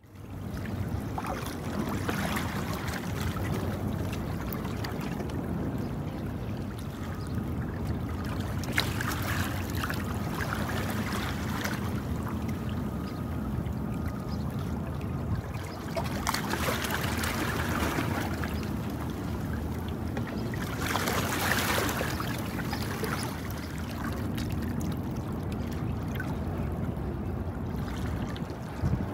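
Harbour waterside ambience: a steady low rumble with moving water, and a rushing noise that swells up twice, around 17 and 21 seconds in.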